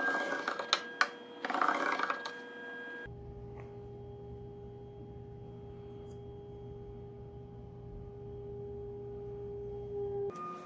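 A small wooden hand tool scraping and rubbing along a wooden board in short strokes, with a few sharp clicks. About three seconds in this cuts to a steady low hum with a held tone.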